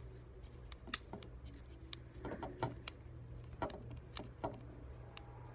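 Faint, scattered clicks and taps of small plastic phone parts and tiny screws being handled during reassembly, over a low steady hum.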